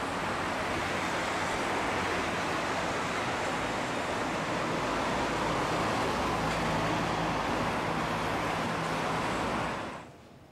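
Steady city street traffic noise, with a faint low engine hum under it; it cuts off abruptly near the end.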